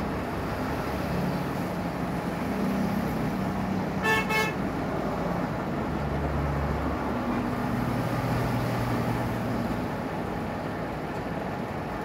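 Steady background road traffic with vehicle engines running, and one short vehicle horn toot about four seconds in.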